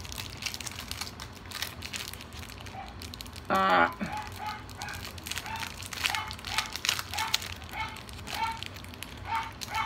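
Clear plastic packaging bag crinkling as small notepads are handled and taken out, while a dog barks over and over in the background, about two or three barks a second from about halfway in. One brief louder sound about three and a half seconds in.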